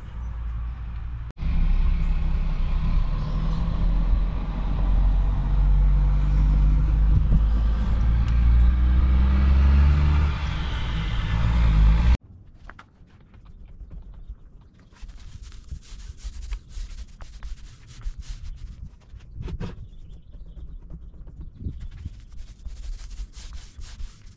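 A loud, low rumble with a wavering hum runs for about ten seconds and cuts off suddenly. Quieter, intermittent rubbing strokes follow.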